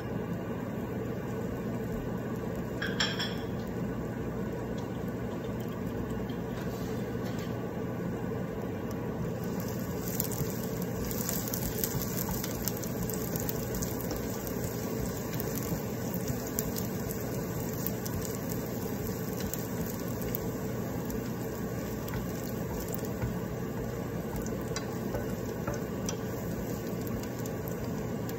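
Chopped garlic sizzling in oil in a ceramic-coated frying pan while a wooden spatula stirs and scrapes it, the sizzle crackling more from about ten seconds in. A brief high-pitched squeak about three seconds in, over a steady low hum.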